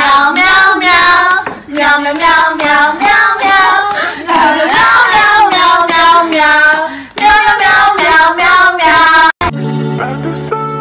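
Singing in a high voice over music, cutting off suddenly about nine seconds in, followed by soft plucked-guitar music.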